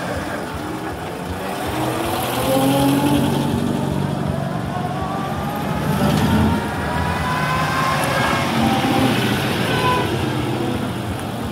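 Vintage cars' engines running as they drive off one after another, with several rising in pitch as they pull away. Crowd chatter underneath.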